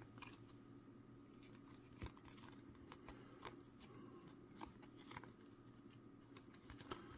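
Faint, scattered ticks and rustles of a stack of 2023 Topps Pristine baseball cards being flipped through and sorted by hand, over a low steady room hum.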